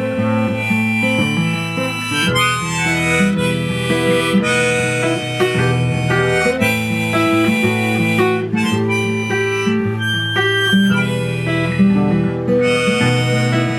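Instrumental music: a harmonica playing a melody over acoustic guitar.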